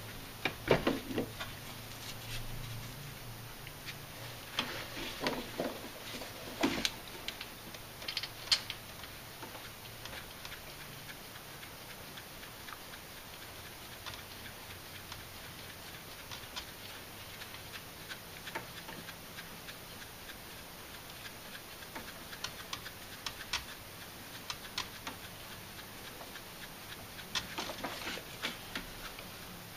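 Scattered light metallic clicks and taps as cast cam bearing caps and their bolts are handled and set in place over the camshaft on a Chrysler 4.7L V8 cylinder head. They come in small clusters, about a second in, again around five to nine seconds, and in the last third.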